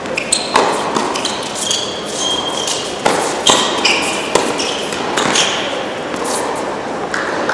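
Tennis ball struck back and forth with rackets in a doubles rally, a string of sharp pops, with sneakers squeaking on the indoor hard court between shots.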